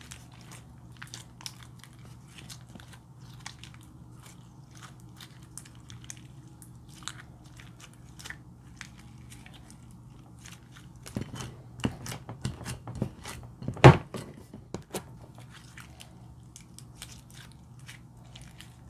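Slime mixed with eyeshadow and glitter being kneaded and stretched by hand, giving a steady stream of small sticky clicks and pops. A cluster of louder pops comes past the middle, with the loudest snap about two-thirds of the way through. A steady low hum sits underneath.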